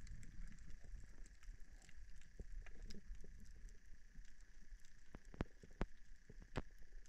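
Underwater sound of a coral reef: irregular sharp clicks and crackles over a low rumble, with a few louder clicks in the last two seconds.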